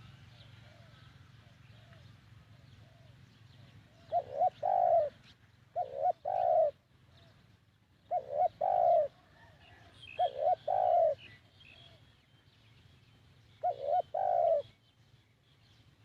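Spotted dove cooing: five phrases about two seconds apart, each two short notes followed by a longer one. Faint chirping of other birds sounds behind it.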